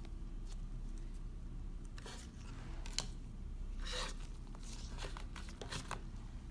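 Hand-handling noise from a leather wallet and its cardboard gift box: scattered light clicks and rustles, with a sharp click about three seconds in and a longer scraping rustle about a second later, over a faint steady low hum.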